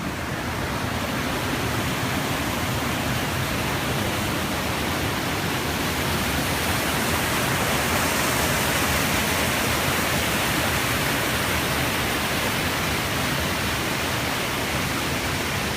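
Waterfall: falling water rushing in a steady, even wash of noise.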